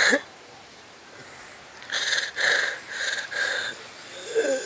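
A man crying: a run of four short, breathy, gasping sobs about two seconds in, then a lower moaning sob near the end.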